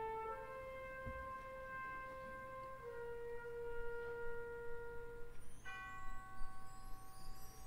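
Concert wind band playing a soft, slow passage of sustained woodwind and brass notes. A new held chord enters about six seconds in, topped by a high glittering shimmer near the end.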